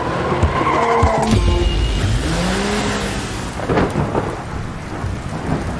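Cartoon storm sound effect: a hiss of wind and driving sleet, with a deep thunder-like rumble about a second and a half in and a rushing swell soon after.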